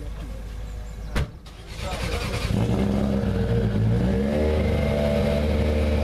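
Citroën DS3 WRC rally car's 1.6-litre turbocharged four-cylinder engine starting: a sharp click about a second in, then the engine catches and settles into a steady idle.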